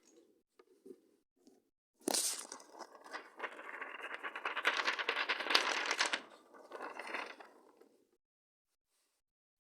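Craft material for a homemade squishy, such as paper, tape or plastic, being crinkled and torn by hand. The crackle starts suddenly about two seconds in, runs for about six seconds as a dense crackle, and fades out near the end.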